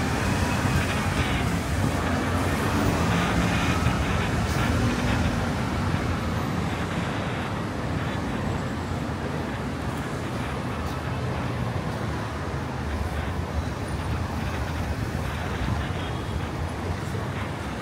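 City street traffic: a steady rumble of passing cars and other road vehicles, louder for the first few seconds and then easing off.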